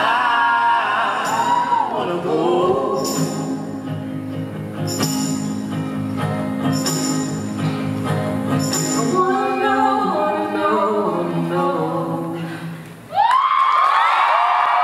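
A slow recorded song with a sung vocal over sustained low notes and a soft high percussion hit about every two seconds, ending in a fade. Near the end the audience breaks into loud cheering and whooping.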